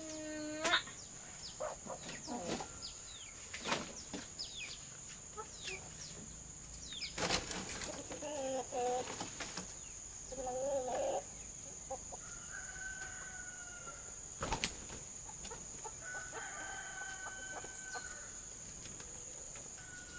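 Farmyard chickens clucking and a rooster crowing in scattered calls, over a steady high-pitched insect drone, with a few sharp knocks.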